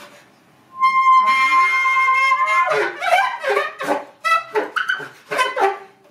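Contemporary classical chamber music: about a second in, a loud high woodwind note is held for nearly two seconds over sliding tones, then a run of short, sharp stabbed notes.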